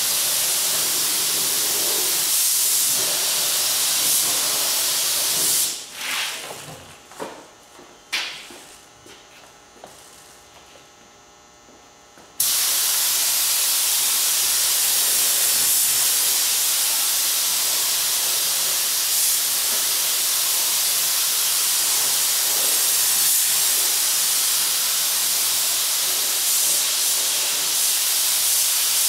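Compressed-air paint spray gun hissing steadily as it lays the black colour coat on a hood. The spray cuts off about five and a half seconds in, a few knocks ring out in the lull, and the hiss starts again abruptly about twelve seconds in.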